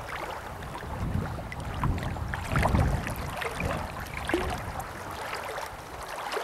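Wind buffeting the microphone at the water's edge, a low rumbling rush that gusts strongest about two to three seconds in.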